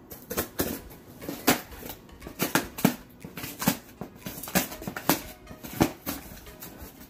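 Scissors snipping through packing tape on a cardboard shipping box: a run of sharp, irregular snips, about one or two a second.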